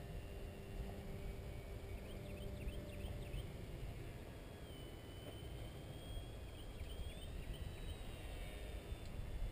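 Wind rumbling on the microphone, with the faint whine of a distant radio-controlled model plane's motor, its pitch rising about seven seconds in. Short bird chirps come in about two seconds in and again around seven seconds.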